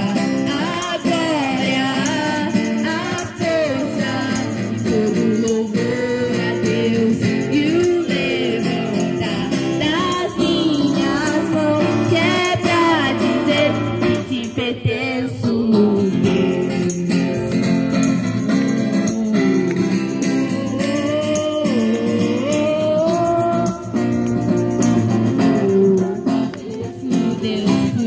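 A woman singing a Christian worship song into a microphone, amplified through a portable speaker, with acoustic guitar accompaniment.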